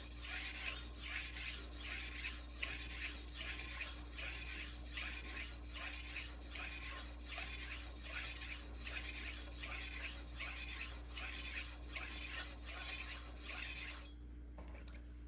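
A BD1N steel knife edge being stroked back and forth on a wet Juuma Cobalt Blue 800-grit waterstone, an even scraping at about two strokes a second that stops near the end.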